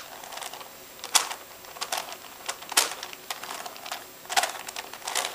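Rubik's Cube layers being turned by hand: about half a dozen sharp plastic clicks at uneven intervals.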